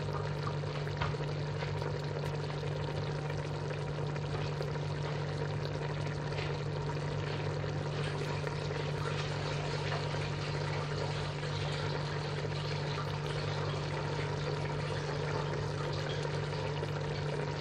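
Fish pieces simmering in a tomato and yogurt sauce in a pot, bubbling and sizzling steadily with many small crackles. A steady low hum runs underneath.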